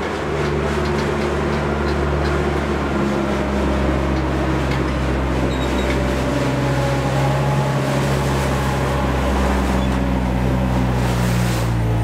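Diesel engine of heavy farm machinery running steadily under load, its pitch drifting a little; near the end a rising tone comes in along with more hiss.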